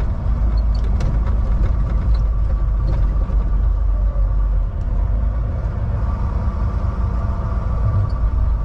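Volvo semi-truck's diesel engine running steadily at highway speed, with road noise, as a low continuous drone inside the cab.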